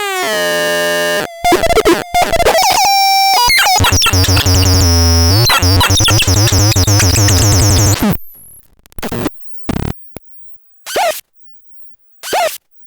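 Synthesizer playing harsh, layered electronic tones with pitch glides and stepped notes, over a low drone in the second half. It stops abruptly about eight seconds in, leaving a few short blips that fall in pitch, two of them about a second and a half apart near the end.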